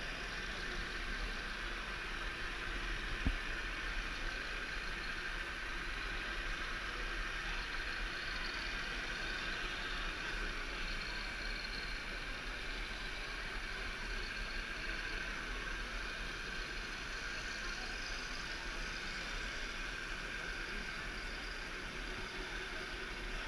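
Steady mechanical hum over an even background noise, with faint steady whining tones, and a single sharp click about three seconds in.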